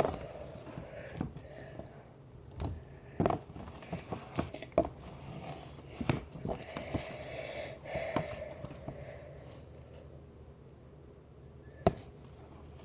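Hands working a cornstarch-and-water Oobleck mix in a clear bin: scattered short wet knocks and squelches, with one sharp knock near the end.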